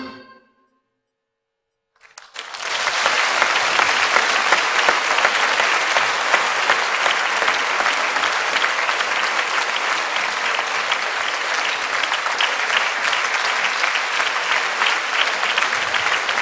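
The last notes of a violin and cello die away, and about two seconds in a large audience starts applauding, steady and sustained.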